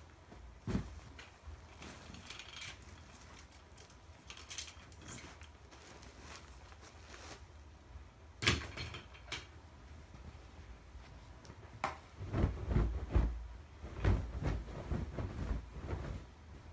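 Bedding being handled and smoothed onto a mattress: fabric rustling and brushing, with a few sharp rustles scattered through, then a run of soft thumps and rustles near the end as pillows and covers are put down.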